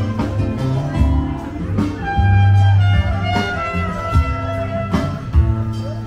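Jazzy music with a heavy bass line, guitar and held melody notes.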